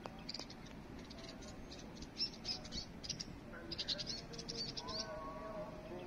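House sparrows chirping, many short high chirps in quick runs. A steady hum made of several level tones comes in about three and a half seconds in.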